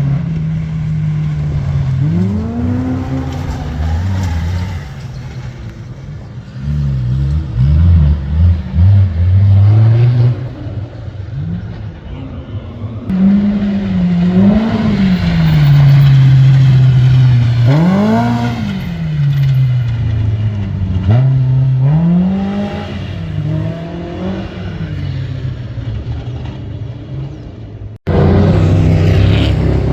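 Competition safari off-road racing vehicle's engine revving hard and dropping back again and again, the pitch rising and falling every few seconds. The sound breaks off abruptly for an instant near the end and picks up again.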